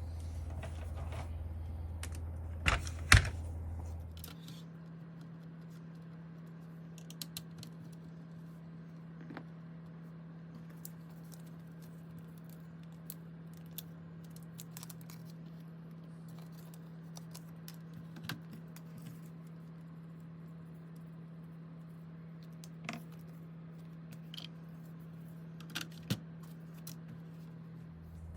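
Scattered small plastic clicks and taps of a mechanical keyboard's parts being handled and taken apart, with two sharper clacks close together about three seconds in, over a steady low hum.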